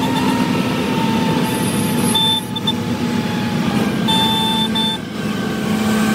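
Heavy truck running along the highway: steady engine and road noise, with short high-pitched tones that come and go several times.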